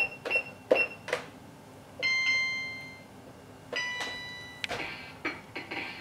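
Two single electronic chime notes, each ringing and fading over about a second, with light taps and knocks before and after them.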